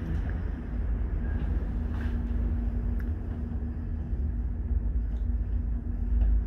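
Aerial tram cabin riding up its cables: a steady low rumble with a faint constant hum, heard from inside the cabin, with a few faint ticks.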